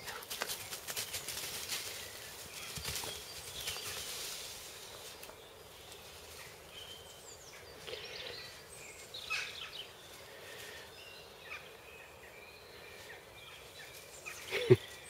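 Dry fallen leaves rustling and crackling under a Weimaraner's paws as it sniffs and trots through leaf litter, with birds chirping at times. Near the end comes one brief, loud sound that drops in pitch.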